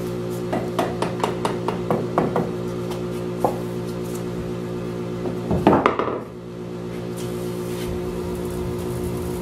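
Light wooden knocks and clicks from bar clamps being set and tightened on a glued-up wooden frame: a quick run of about five a second, then a single knock and, about halfway, a short louder clatter. A steady hum of several tones runs underneath.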